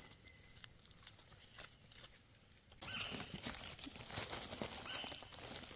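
Dry leaf litter rustling and crackling as it is disturbed, starting about three seconds in after a near-quiet stretch of faint clicks.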